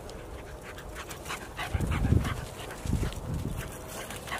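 A cockapoo panting close by, with two louder low huffs about two and three seconds in.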